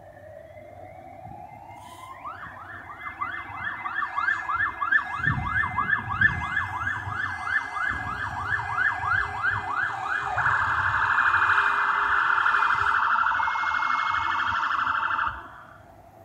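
Emergency vehicle's electronic siren: a slow rising wail for about two seconds, then a fast yelp sweeping about four times a second, which switches about ten seconds in to a much faster warble and cuts off suddenly near the end.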